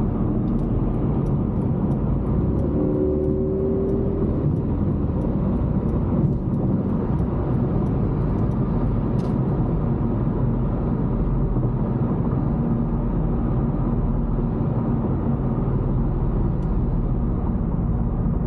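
Interior road and engine noise of a vehicle driving at speed, a steady low rumble. A brief pitched tone sounds about three seconds in.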